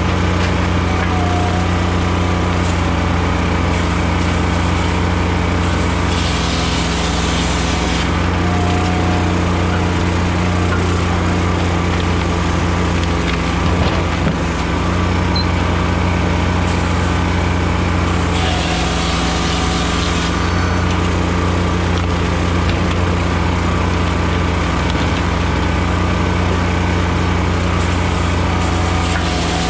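Blockbuster firewood processor running steadily while splitting softwood, its engine and hydraulics giving a constant hum. A louder rushing hiss comes in twice, for about two seconds each time.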